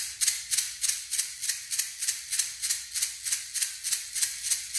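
Handheld shamanic rattle shaken in a steady, even rhythm.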